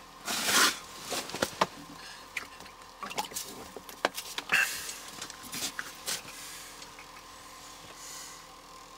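Handling noises at an ice-fishing hole while a hooked whitefish is worked: a short rustling rush about half a second in, then scattered clicks, knocks and light water sounds that die down over the last few seconds.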